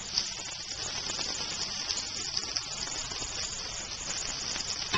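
Ground beef patties sizzling on a hot cast iron grill pan: a steady crackling hiss, with a sharp click just after the start and another near the end.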